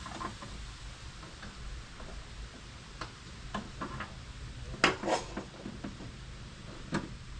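Scattered metallic clicks and clinks from handling the lawn mower's belt and pulleys, the loudest pair about five seconds in and another near the end, over a faint steady hum.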